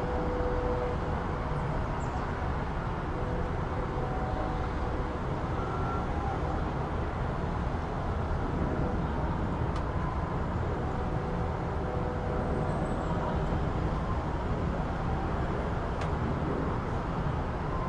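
City street ambience: a steady wash of traffic noise, with faint short tones and the odd distant click coming and going over it.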